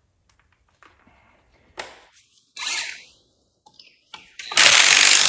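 Small tool clicks and clinks on a rusted chassis bolt. About four and a half seconds in, a power tool starts running loudly on the seized bolt, trying to turn it out.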